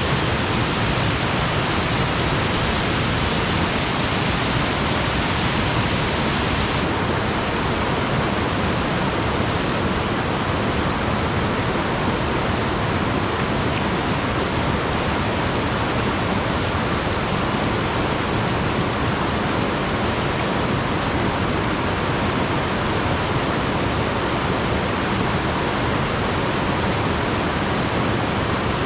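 Steady, loud rush of falling water from a jungle waterfall, an even roar with no break.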